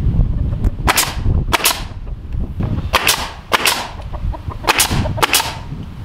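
Nail gun firing six times, in three pairs about two-thirds of a second apart, driving nails through a wooden trim board into the barn's door framing. Wind rumbles on the microphone at first.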